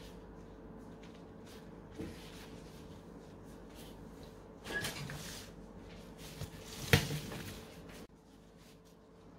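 Handling noises around a serving plate of qatayef: a light knock about two seconds in, a rustle about five seconds in, and one sharp knock, the loudest, about seven seconds in.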